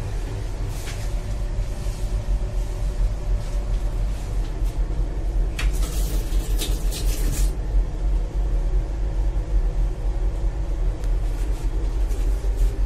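Steady low rumble and rattle of a moving Duronto Express train coach, heard inside its small washroom. About halfway through, a tap runs water into the stainless-steel washbasin for about two seconds.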